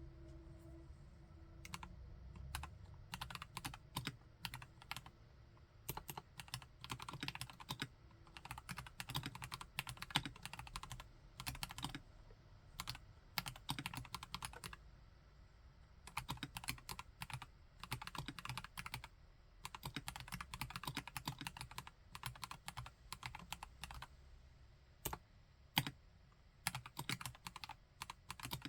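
Typing on a KLC Nori Spring Rider mechanical keyboard with linear Gateron Yellow Pro V2 switches. The keystrokes come in quick runs separated by short pauses, with one louder single stroke near the end.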